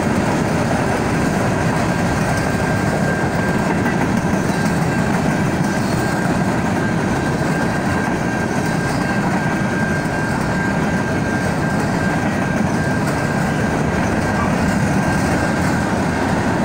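Freight train cars rolling steadily past at close range: a loud, even rumble of steel wheels on the rails. A thin, steady high whine sits above it.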